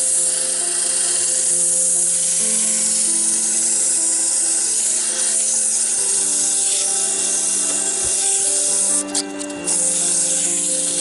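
Hand-held sandpaper hissing against the inside of a wooden bowl turning on a wood lathe, under background music with slow held notes; the sanding sound dips briefly about nine seconds in.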